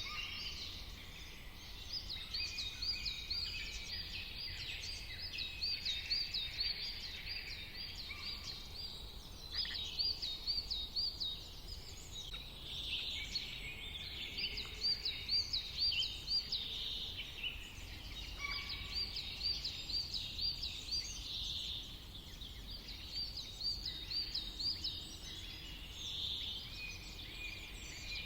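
Several wild birds singing at once. One bird repeats a quick, high, up-and-down warbling phrase every few seconds among other chirps and calls, over a faint steady low rumble.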